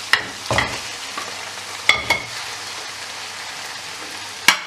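Chicken pieces sizzling steadily in hot ghee in a kadai as they are added and stirred, with several sharp clinks of a spoon against the metal pan, the loudest near the end.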